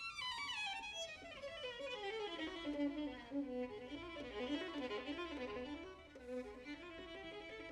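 Solo violin playing a fast run. It falls from high to low over the first few seconds, winds through quick figures in the low register, and climbs back up near the end.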